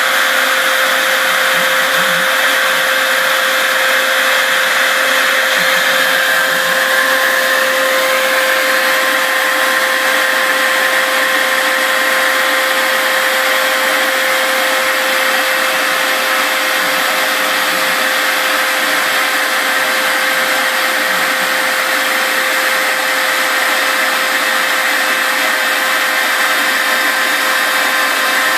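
Router on a home-built CNC mill spinning and cutting inch-thick foam, with a shop vac running alongside for dust extraction: a loud, steady machine noise with a constant whine, one higher tone rising slightly about seven seconds in.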